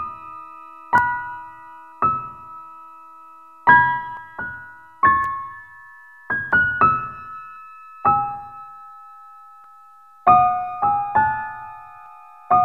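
Background music: a slow, sparse piano melody, single notes and small chords struck about once a second and left to ring out and fade.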